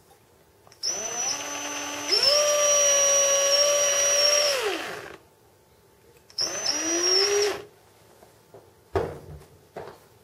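Cordless drill drilling out a pin in a diecast model crane's lattice boom section. It runs in two bursts: a run of about four seconds that steps up in speed partway and then winds down, and a short second run that rises in pitch. A sharp knock and a few small clicks follow near the end.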